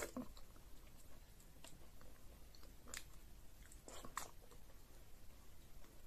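Faint, close-up chewing of egusi soup and fufu, with a few soft, sharp wet mouth clicks.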